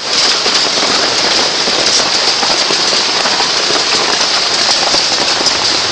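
Hail and heavy rain falling, a dense, steady hiss of countless small impacts.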